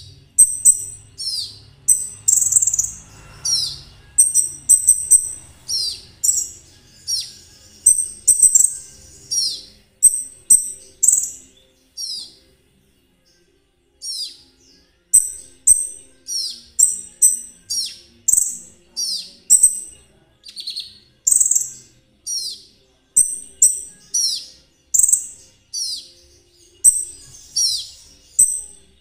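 A konin trotol songbird calling over and over. Its short, very high chirps sweep downward, mixed with quick rattling trills, about one to two a second, with a brief pause near the middle.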